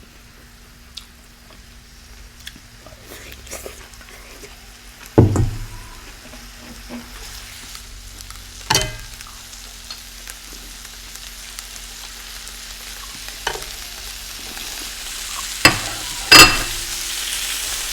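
Close-miked eating sounds: wet chewing noise with a few sharp, loud crunches or clicks, the loudest near the end.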